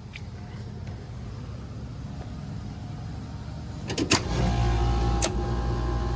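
Carrier rooftop unit starting up: sharp clicks about four seconds in as the contactor pulls in, then the compressor starts and settles into a loud, steady low hum, with another click a second later. This is a start for a starting-amps reading on a compressor that had earlier sounded like it had rocks in it; this time the start does not sound so bad.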